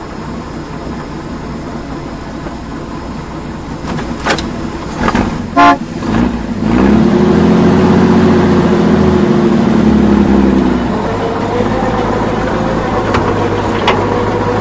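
Heavy truck engine running, a short horn toot about five and a half seconds in, then the engine revs up loudly and winds back down over about four seconds as the truck strains to pull a stuck SUV out of mud on a tow rope.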